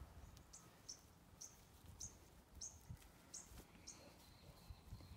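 Near silence, with a faint high chirp from some small animal repeating about every half second to second, and a faint steady high tone joining near the end.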